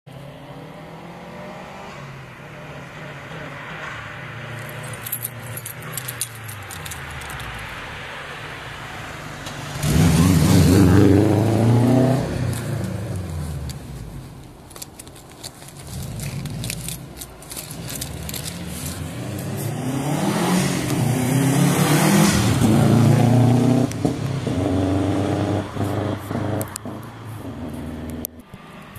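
Turbocharged Subaru Impreza wagon's flat-four engine accelerating hard past, its note rising then falling away, twice: a sudden loud pass about ten seconds in, and another building from about sixteen seconds to a peak a few seconds later. Stretches of rapid clicking crackle come through between the passes.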